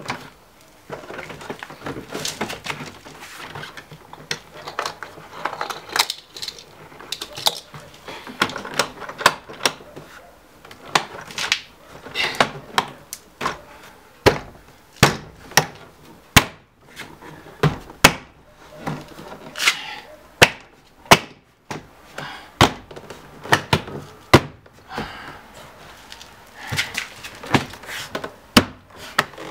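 BMW E39 front door trim panel being pushed and struck by hand onto the door, its plastic retaining clips snapping in. The result is a long run of sharp knocks, coming about once a second through the middle.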